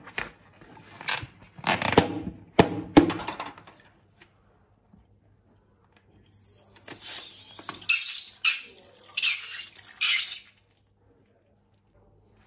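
Slime being handled and squeezed. A few sharp clicks and soft squelches come first, then after a quiet spell a run of crackly, squishing sounds lasting about four seconds.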